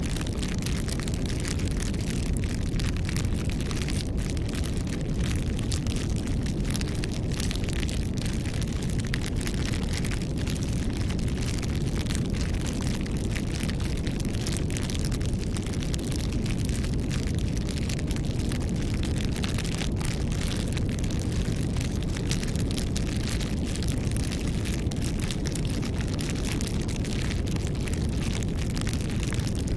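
Campfire crackling: a dense, irregular run of sharp pops and snaps over a steady low rumble of the flames.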